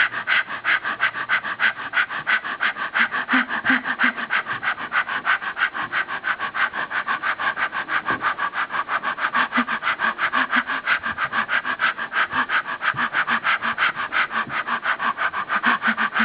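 A person breathing heavily in fast, even, rhythmic pants, about five a second, that cut off suddenly at the very end.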